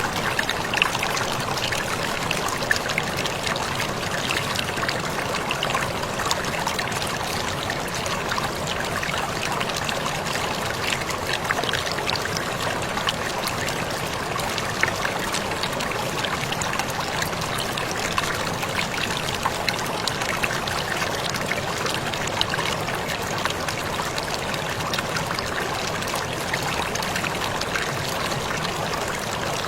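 Waterfall falling steadily, a continuous rushing and splashing of water, dotted with small sharp drips and splashes.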